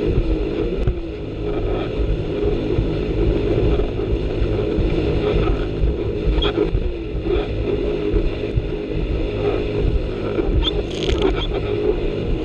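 Jet ski engine running steadily at cruising speed, about 6,300 rpm, with wind buffeting the microphone as the craft skims across choppy water. A few brief sharp sounds come near the middle and near the end.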